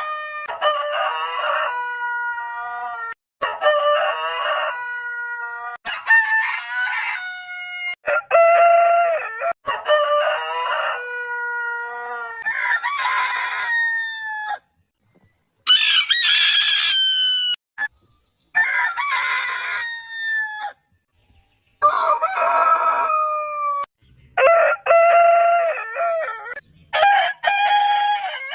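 Rooster crows one after another, about one every two to three seconds. Each is a drawn-out cock-a-doodle-doo, and the pitch varies from crow to crow. Abrupt cuts and short gaps separate them.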